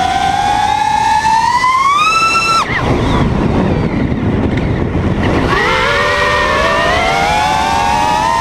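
Brushless motors of a Mark4 FPV quadcopter whining in a stack of tones that rise in pitch as throttle comes up. About two and a half seconds in they cut off abruptly, leaving a few seconds of rushing air, then spool up again with rising pitch near the end.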